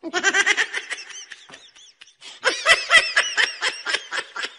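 A person laughing in quick, breathy bursts. One run starts right away and trails off, and a second, louder run begins about halfway through.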